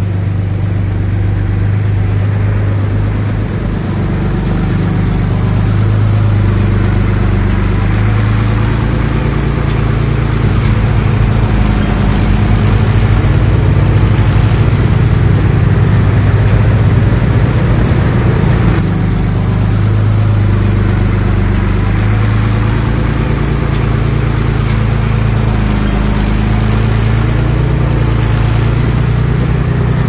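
Komatsu D31P bulldozer's diesel engine running under load. Its low note rises and falls as the engine works harder and eases off, and it is loudest around the middle.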